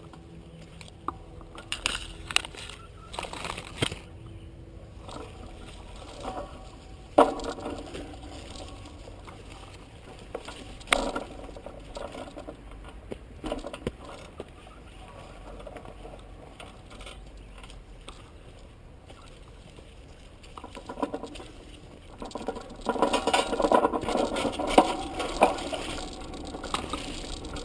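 Bicycle rattling and clicking as it rides over a rough dirt trail, with scattered sharp knocks and a denser stretch of rattling near the end.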